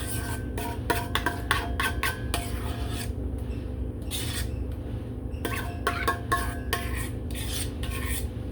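Spoon scraping and clinking against a bowl in a quick run of short strokes, some leaving a brief ring, as thick chocolate pudding is scooped out and spread.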